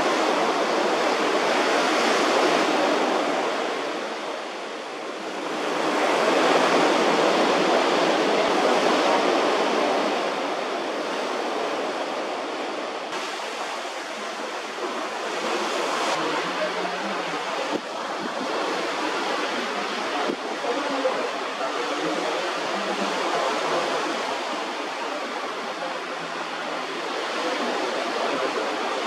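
Steady rushing noise of wind and water, swelling twice in the first ten seconds and then settling to an even rush.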